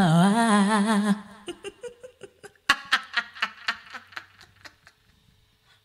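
A sung jingle ends on a held, wavering note about a second in. Then a woman laughs in a string of short bursts that trail off.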